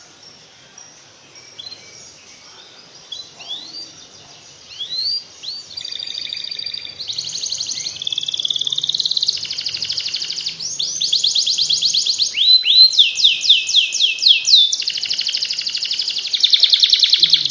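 Canary singing: scattered chirps and rising whistles at first, building about six seconds in into loud, fast rolling trills and runs of rising notes. This is the long continuous trilling that keepers call ngekek, played as a training song for other canaries.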